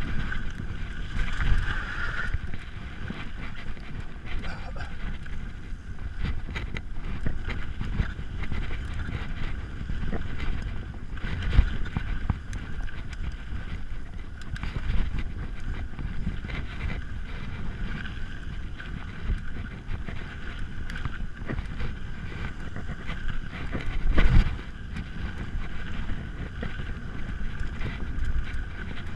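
Mountain bike descending a dirt forest singletrack at speed: wind buffeting the camera microphone over the steady rumble of the tyres on the trail, with occasional sharp knocks as the bike hits bumps, two of them louder, about 11 and 24 seconds in.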